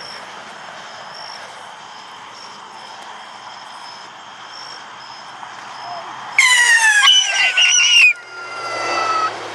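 Whistling firework going off: a sudden, loud, shrill whistle of several tones starts about six seconds in. It slides down in pitch, drops off sharply after about two seconds and fades out, still falling, about a second later.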